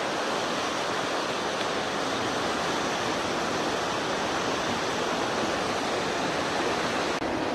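Steady, even rushing noise with no other sound standing out.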